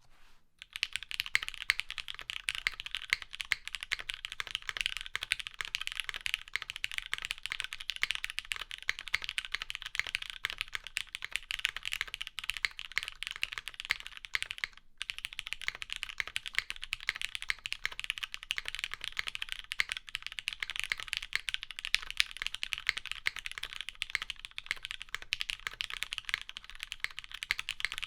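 Fast, continuous typing on a Polo prototype custom mechanical keyboard with Cherry MX Black linear switches on 67 g springs, an aluminium half plate and GMK keycaps: dense keystroke clacks with a brief pause about halfway through.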